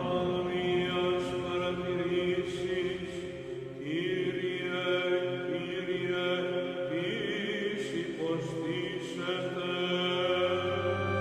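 Background music of sustained, droning tones that change every few seconds, with a few short rising slides in pitch.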